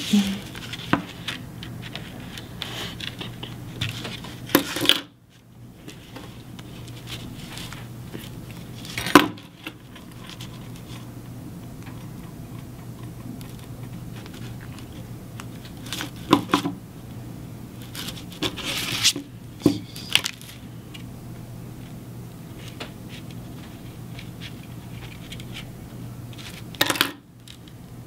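Scattered clicks and clacks of hand tools (scissors and wire strippers) being worked and set down on a wooden tabletop while thin wire is stripped and bent. A cluster of clicks comes about two-thirds of the way through, over a steady low hum.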